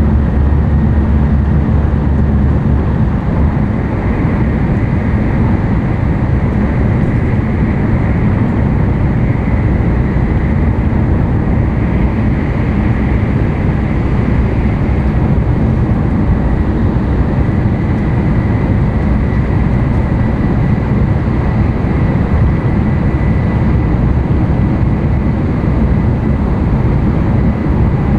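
Running noise of an N700-series Tokaido Shinkansen at speed, heard inside the passenger car: a steady, deep rumble with a faint, steady high whine.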